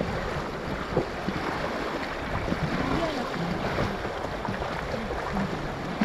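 Fast-flowing river water rushing and splashing steadily around a raft.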